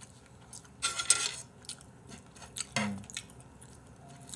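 Metal tongs handling crispy fried chicken on a plate: a crisp, crackly rustle about a second in, then scattered light clicks.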